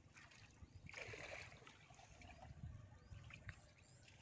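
Faint water splashing and trickling in a shallow pond, over a low rumble. The splashing is a little louder about a second in.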